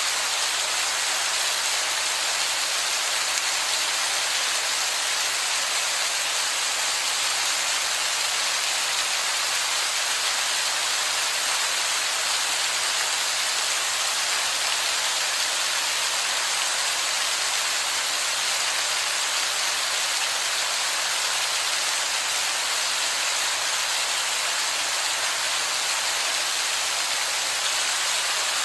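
Heavy rain pouring onto wet rock, a steady even hiss of falling and splashing water with no let-up.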